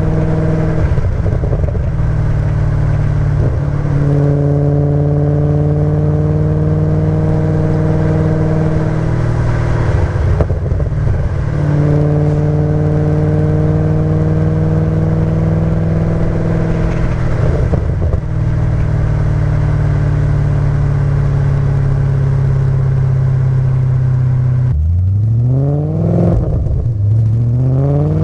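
Audi B7 RS4's 4.2-litre V8 through a Milltek cat-back exhaust, holding a steady drone at constant revs with a few brief breaks. Near the end the revs climb twice in quick succession, the pitch rising under acceleration.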